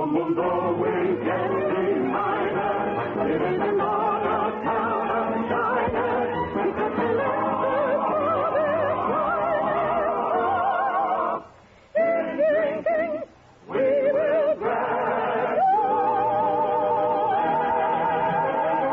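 A soprano sings an operetta song with strong vibrato over an orchestra, breaking off briefly twice a little past the middle. Near the end she holds a long wavering note.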